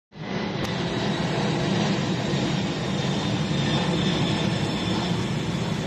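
Boeing 747-400 freighter's four jet engines at takeoff power as it climbs out overhead: a loud, steady low rumble with a faint high whine.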